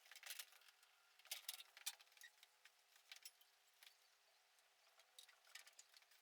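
Faint metallic clinks and rattles of hand tools and loose parts being handled, in scattered short clusters.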